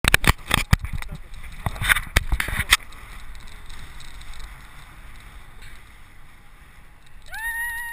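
Wind buffeting a hand-held camera's microphone in flight under a tandem paraglider: gusty knocks and rustling for the first three seconds, then a steadier rush of air. Near the end a single high tone rises and holds for about a second.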